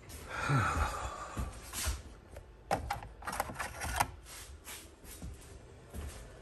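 Footsteps on a hard floor with handling noise: a rustle near the start, then a cluster of light clicks and taps around the middle, the sharpest about two-thirds of the way through.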